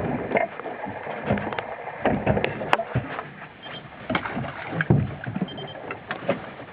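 Irregular knocks and bumps on a small open fishing boat, over a steady wash of water and wind noise.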